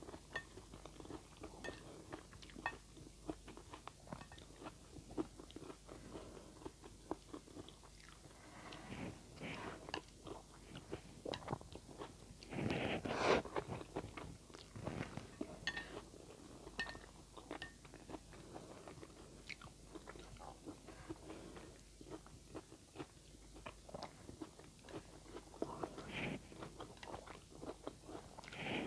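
Close-up mouth sounds of a person eating instant noodles: irregular wet chewing and smacking, with a louder slurp of noodles about halfway through.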